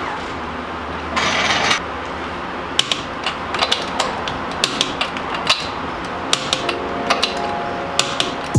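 Irregular sharp metallic clicks, a few a second, from a ratchet wrench and socket as lug nuts are run onto a car's wheel studs to mount the wheel, with a brief rushing hiss about a second in.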